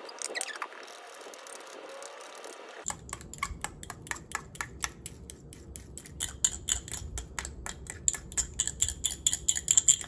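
A few light clinks of a fork in a small ceramic cup, then, about three seconds in, a long run of sharp, even mechanical clicks that quicken toward the end.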